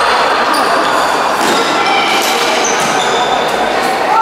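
Indoor futsal game: ball kicks and short sneaker squeaks on the court over a steady hubbub of players' and spectators' voices, echoing in a large hall.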